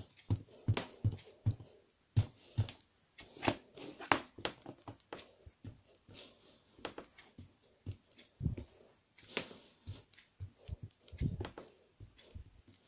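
Round foam ink-blending tool dabbed over and over through a plastic stencil onto paper on a desk mat, making a run of soft, irregular taps a few times a second.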